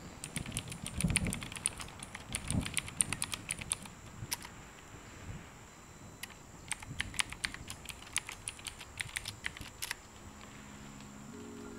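Typing on a computer keyboard: a run of quick keystrokes for about four seconds, a pause, then a second run of about four seconds, entering a username and then a password.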